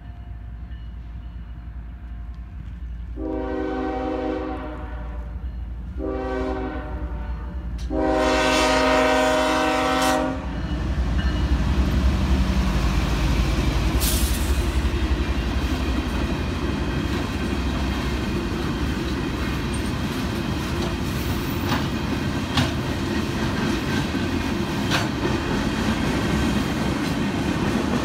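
Freight locomotive horn sounding three blasts for a grade crossing: long, short, long. It is followed by the train rolling through, a steady heavy rumble with wheels clicking over rail joints.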